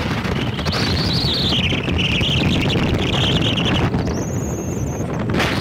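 Speedboat running fast over the water, with heavy wind buffeting the microphone and a steady rushing noise from the engine and hull. A brief high-pitched tone sounds about four seconds in.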